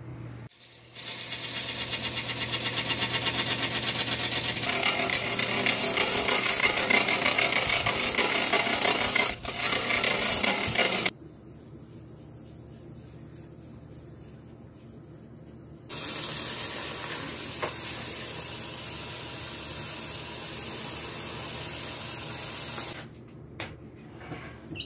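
Wood lathe spinning a wood-and-resin root vase while a gloved hand holds a rag against the turning surface to finish it: a loud, even rubbing hiss from about a second in, quieter for a few seconds about halfway, loud again, then cutting off shortly before the end.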